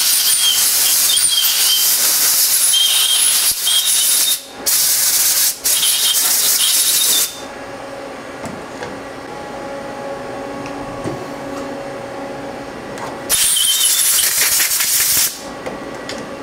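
Compressed-air blow gun blowing coolant off a freshly tapped part in the lathe chuck: a loud hiss that runs about seven seconds with two short breaks, stops, and comes back for about two seconds later on, over a steady machine hum.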